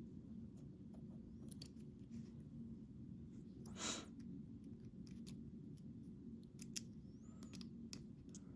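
Faint, scattered light metal clicks from a pin-tumbler challenge lock and a thin shim being worked as the plug is shimmed out of the housing, with one brief louder swish about four seconds in.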